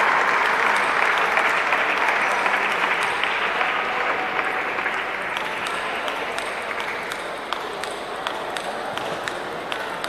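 Spectators applauding in a sports hall, the clapping dying away gradually over several seconds. As it fades, sharp clicks of table tennis balls bouncing come through.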